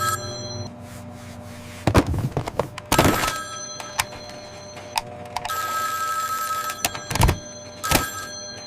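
Telephone ringing: one long ring about five and a half seconds in, with several sharp knocks and thuds around it.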